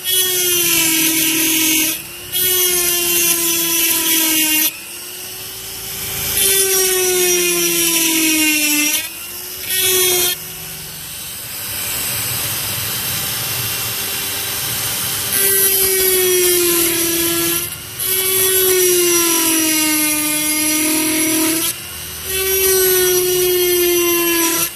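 Small electric drill drilling out the hinge of a Zippo lighter case at its stamp mark, running in bursts of a few seconds with short stops, its whine dropping in pitch as the bit bites.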